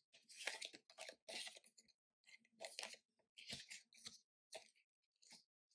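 Tarot cards being dealt one at a time onto a tabletop: a series of faint, short papery slides and taps as cards are drawn from the deck and laid down in a row.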